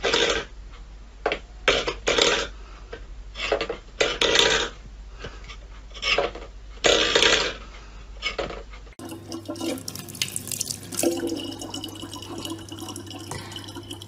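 A stainless-steel food bowl clattering and scraping on a wooden floor again and again under a cat's paw. About nine seconds in, this gives way to a thin stream of water trickling from a faucet into a plastic water jug, over a steady low hum.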